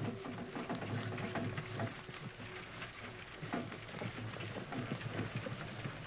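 Close-miked ASMR trigger sounds: a dense, irregular run of soft taps and clicks.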